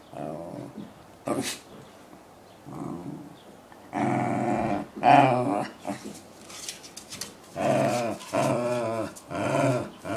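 West Highland White Terrier moaning and growling in a string of drawn-out, wavering calls, about seven of them, each half a second to a second long with short pauses between.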